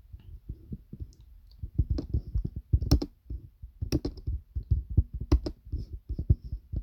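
Irregular taps and clicks of fingers working a device's controls, a quick uneven run of soft knocks with a few sharper clicks.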